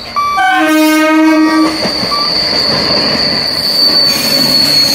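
ICF-built MEDHA three-phase EMU local train sounding its horn once for just over a second, then passing at speed with a rumble of wheels on rail joints and a steady high-pitched whine. A single short electronic beep sounds at the very start.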